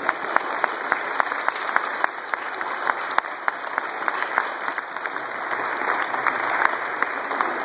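A room full of wedding guests clapping together in steady applause after the bride and groom's kiss.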